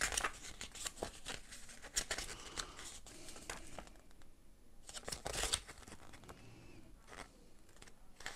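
Folded paper instruction leaflet being handled and leafed through, its pages rustling and crackling in short bursts, loudest about five seconds in.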